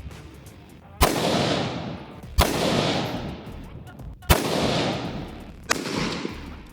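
Four gunshots from a firearm, about a second and a half to two seconds apart, each followed by a long fading echo.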